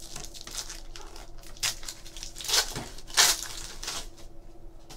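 Foil wrapper of a trading card pack being torn open and crinkled, with a few louder crackles in the middle, dying away near the end.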